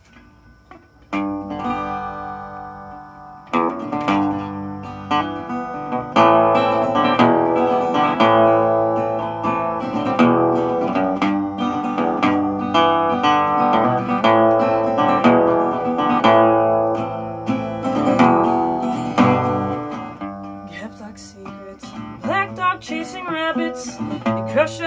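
Single-cone resonator guitar played solo, chords and picked notes ringing out as an instrumental intro that starts about a second in.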